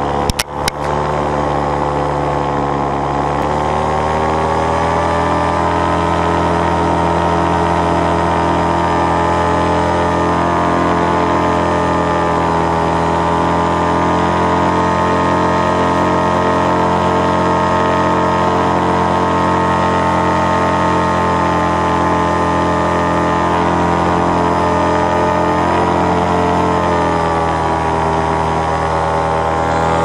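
Paramotor engine and propeller running steadily in flight. Its pitch rises a few seconds in and dips briefly near the end. A few sharp knocks come right at the start.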